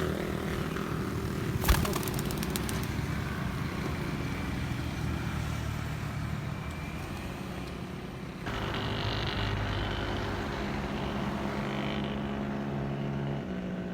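A motor vehicle's engine running steadily; its tone shifts about halfway through and again near the end. A sharp knock about two seconds in is followed by a quick run of clicks.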